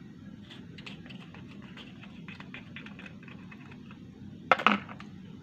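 Wooden chopsticks tapping and scraping inside a small plastic sauce cup to get sambal out, a run of light clicks, then a couple of louder sharp knocks about four and a half seconds in.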